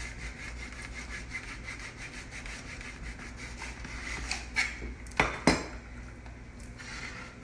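A knife sawing back and forth through a thick raw chicken breast held in a plastic slicing guide, a steady rubbing scrape. About five seconds in come a few sharp plastic clacks as the guide's lid is lifted off.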